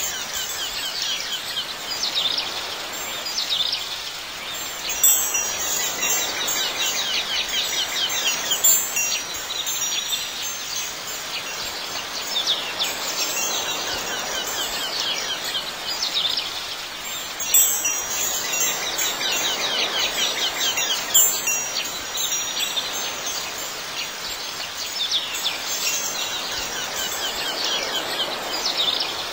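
Chimes tinkling in dense clusters that swell and fade every few seconds, over a soft steady hiss.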